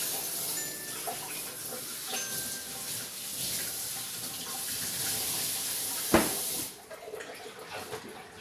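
Steady rush of running water, with a single sharp knock about six seconds in, after which the water stops.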